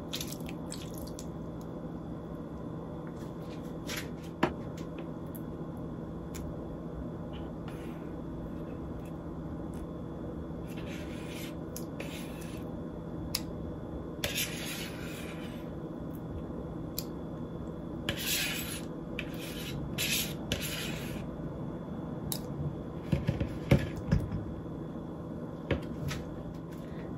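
Kitchen handling sounds over a steady low hum: lemon juice poured from a small glass bowl onto marinated chicken in a steel bowl, then a spoon scraping yogurt out and onto it, with a few sharp clicks and short scraping bursts.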